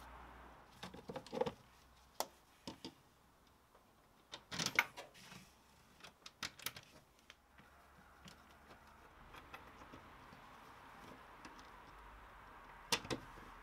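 Scattered light clicks and taps of bolts, washers and plastic relays being handled and fitted onto bolt fixing points on a van's steel bulkhead, with a short cluster about five seconds in and another near the end.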